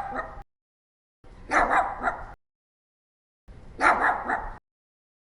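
Puppies barking in three short bursts of quick, high yaps, each burst about a second long, with dead silence between them.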